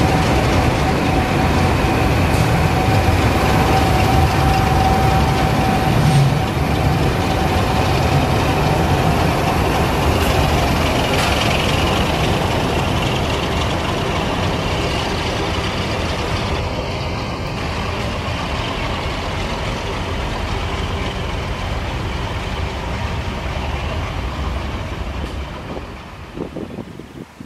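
A train locomotive running past, loud and steady, with a held tone for the first several seconds; the noise gradually fades away over the last third.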